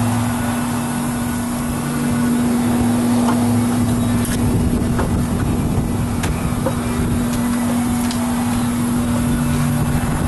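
A steady machine hum with a low drone, as from an engine or motor running nearby, with a few light knocks from someone climbing a ladder, about two seconds apart.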